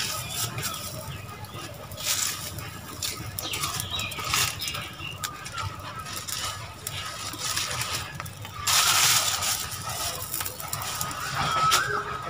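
Dry leaves rustling and crackling as handfuls are gathered and fed into a small leaf-and-stick cooking fire, in several short bursts with the longest and loudest about nine seconds in, and small crackles between them. A bird chirps faintly near the end.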